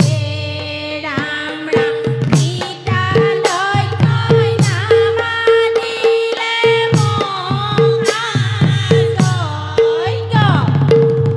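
A group of women singing an Assamese devotional song together, with a laced barrel drum beating a steady rhythm underneath.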